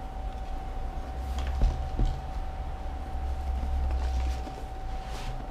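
Cardboard packaging being handled as a box slides out of its cardboard sleeve, with two light knocks about a second and a half and two seconds in.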